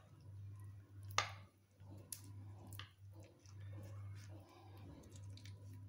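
Faint wet, sticky handling sounds as fingers press and fold a taro leaf smeared with gram-flour paste: soft squishes and small clicks over a low steady hum that drops in and out, with one sharper short sound about a second in.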